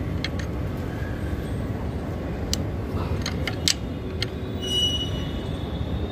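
Ring spanner working the bolt of a new belt tensioner pulley, giving a few sharp metallic clicks, one about halfway through and a quick cluster just after, over a steady low rumble.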